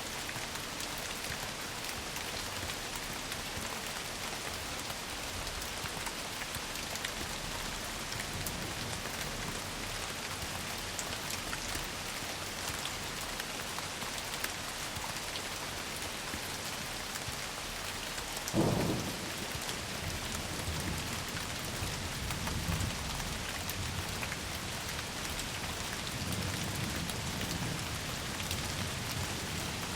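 Rain sound effect for a stage production: a steady hiss of heavy rain. A sudden thunderclap comes a little past the middle, followed by low rolling rumbles of thunder.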